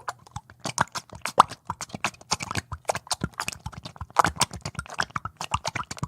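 Bubbles in thick oil and water: a rapid, irregular stream of short wet pops and plops.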